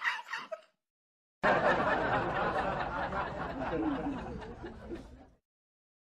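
Several people laughing and chattering, starting abruptly about a second and a half in and fading out about four seconds later; it is cut in as a sound effect, with dead silence on either side. Before it, the tail of a high-pitched scream or laugh dies away.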